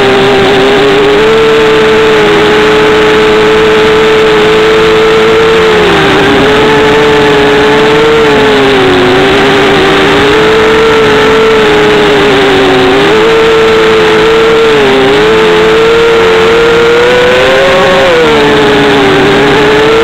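Brushless motors and propellers of a 250-size FPV racing quadcopter, picked up by the onboard camera as a loud, steady buzz. Its pitch dips and climbs back several times as the throttle changes.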